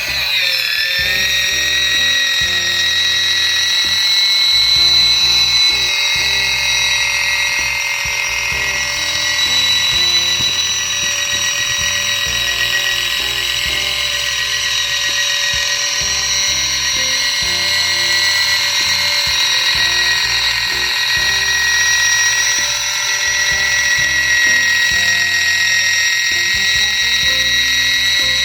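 A small household appliance motor switches on abruptly and runs with a steady high-pitched whine, over background music.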